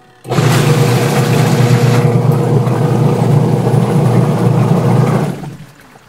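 Sharp single-tub washing machine's motor driving the tub through its belt and pulleys: a loud, steady running noise with a steady hum that starts suddenly, holds for about five seconds, then winds down. It is a test run after the motor and tub pulleys were levelled to cure the machine's weak turning.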